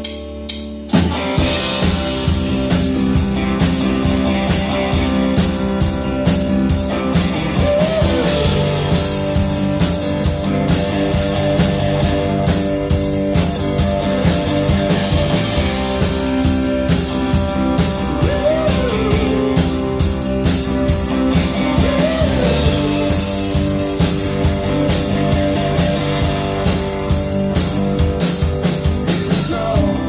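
Live rock band playing an instrumental passage: drum kit, electric guitar, bass guitar and Roland FP-4 digital piano. The full band, drums included, comes back in hard about a second in after a brief lull, then plays on at a steady beat.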